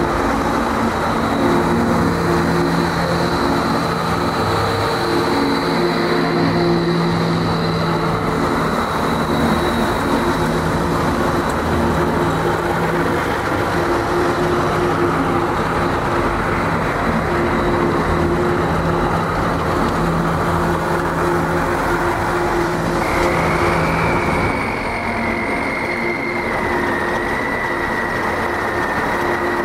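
Cummins 6CTA8.3 turbo-diesel of a 1990 M925A2 6x6 military cargo truck running steadily, with a high whine setting in about two-thirds of the way through.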